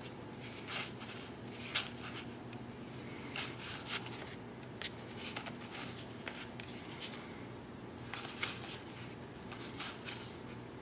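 1990 Donruss baseball cards being flipped and slid from one hand to the other, stiff cardboard cards giving short papery swishes and flicks at irregular intervals over a faint steady hum.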